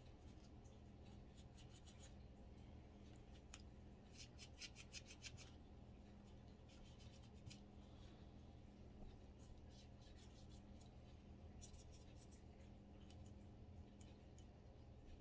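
Near silence: faint rubbing and handling as a Walther CCP pistol slide is wiped and worked on with gloved hands and a microfiber cloth. There is a quick run of faint clicks about four seconds in and a few more near the two-thirds mark, over a low steady hum.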